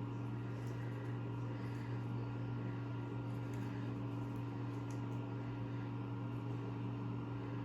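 Steady low mechanical hum, with a few faint ticks over it.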